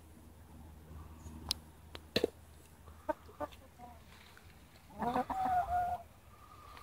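Chickens clucking: a few short clucks about three seconds in, then a louder, drawn-out call about five seconds in. A couple of sharp taps come earlier.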